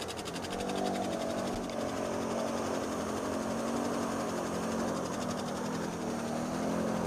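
Quad bike (ATV) engines running, with a steady drone that slowly rises and falls in pitch as an ATV works through a deep mud hole; a fast even ticking sits underneath.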